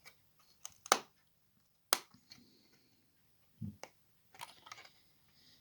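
A RAM stick being pressed into a motherboard memory slot: a few sharp plastic clicks, the loudest about two seconds in, with a dull knock and some light scraping later on.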